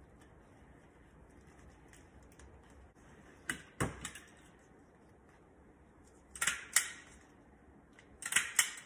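Clear plastic packaging bag and card crinkling and clicking as they are handled, in three short bursts: a few seconds in, about halfway through and near the end.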